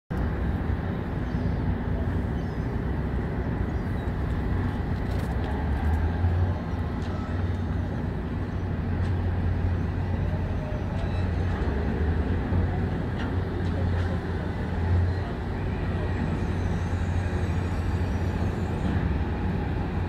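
Steady low rumble of heavy diesel trucks and container-handling machinery running, swelling briefly about six and again about fifteen seconds in.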